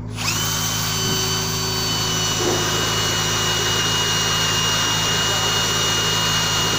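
Cordless drill running continuously with a steady high whine, starting abruptly, as it drives a screw through timber into steel.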